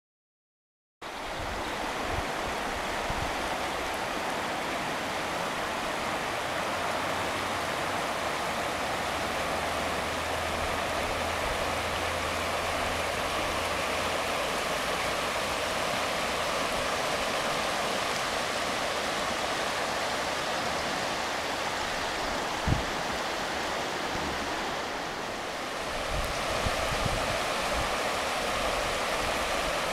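Shallow river rushing over a stony bed, a steady hiss of flowing water that starts about a second in. There is one brief thump a little over two-thirds of the way through.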